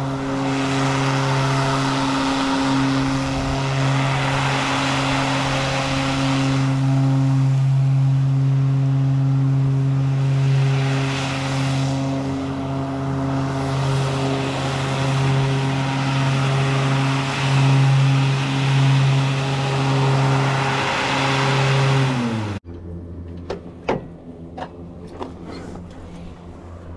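An engine running steadily at a constant speed, its hum unchanging for about twenty seconds. It cuts off abruptly near the end, giving way to a much quieter stretch with scattered clicks and knocks.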